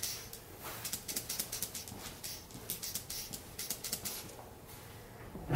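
Rapid light tapping and dabbing of a hair-fiber applicator against the hair at the hairline, several quick taps a second, thinning out about four seconds in.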